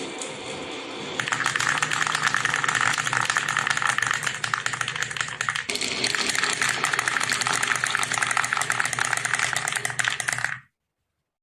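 Many marbles rolling and clattering down a marble run, a dense stream of rapid clicks over a rolling rumble. It cuts off abruptly about a second before the end.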